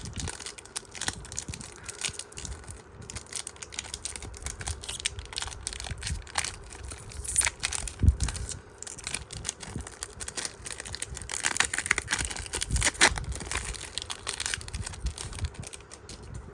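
Foil booster-pack wrapper crinkling and being torn open, with the small clicks and rustles of trading cards being handled, denser crinkling at about seven seconds in and again around twelve seconds.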